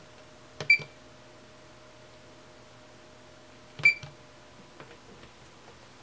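Fluke handheld digital multimeter beeping twice, about three seconds apart, each short high beep coming with the click of a front-panel key press as the meter is switched over to measuring capacitance.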